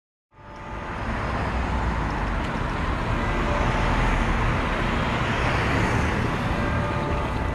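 Road traffic on a city street: cars and vans driving by in a steady rumble of engines and tyres, fading in just after the start.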